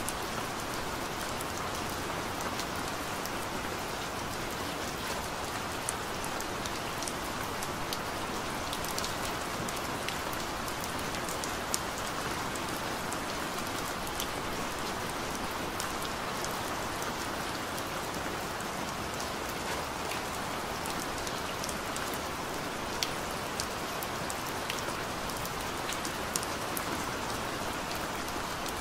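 Steady rain: an even hiss with scattered sharp ticks of single drops, and no thunder.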